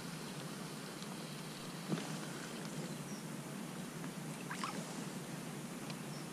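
Quiet pondside outdoor ambience: a steady light hiss, with a small click about two seconds in, a couple of faint high chirps, and a brief soft swish a little after the middle.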